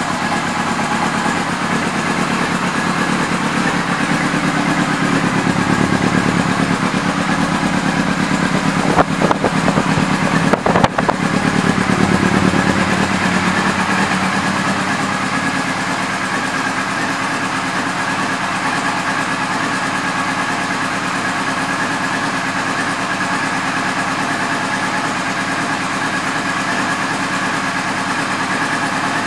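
2001 Yamaha YZF-R6 inline-four engine running through an aftermarket exhaust, mostly at a steady idle. It is louder for several seconds in the middle, with two short sharp spikes in that stretch, then settles back to idle.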